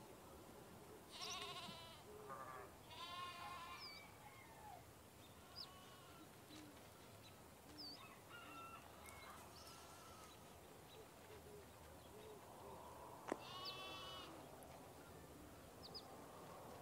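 Cats meowing: three longer meows, one near the start, one a couple of seconds later and one near the end, with shorter high mews between them.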